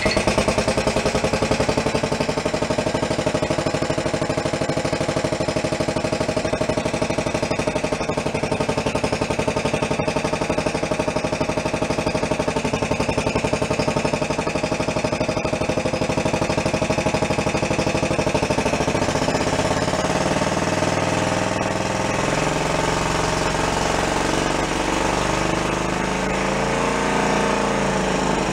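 Single-cylinder air-cooled "thumper" engine running with a fast, even firing beat; about two-thirds of the way through its speed starts to waver. It is freshly revived and running on a carburettor whose mixture is not yet dialed in.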